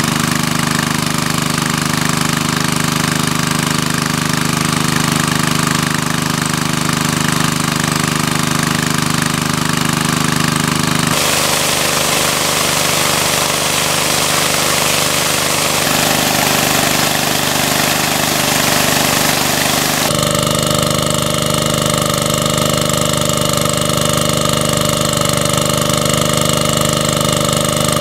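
Small engine-driven water pump running steadily, pumping water out of a pond through a hose, with its jet of water splashing onto a river. For several seconds in the middle the splashing of the jet is louder and the engine fainter, then the engine comes back to the fore.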